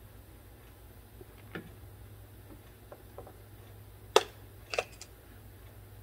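A few light, sharp plastic clicks and taps, the loudest just after four seconds in, from handling a blade fuse and a plastic fuse puller at a pickup's under-hood fuse box, over a low steady hum.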